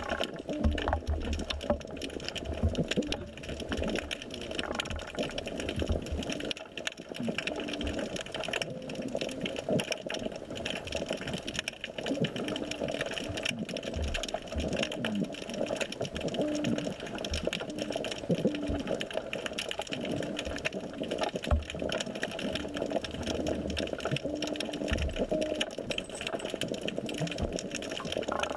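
Muffled underwater sound from a GoPro in its waterproof housing: a steady whirring hum with dense crackling clicks and occasional low thumps, mostly in the first few seconds.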